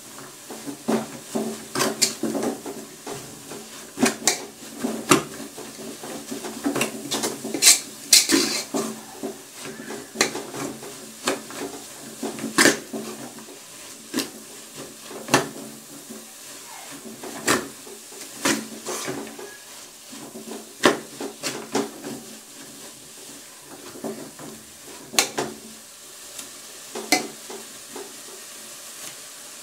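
A metal spoon stirring chopped sukumawiki (collard greens) in a large metal pot, clinking and scraping against the pot's sides and rim in irregular knocks that come thickest in the first half, over a faint sizzle of the greens cooking dry.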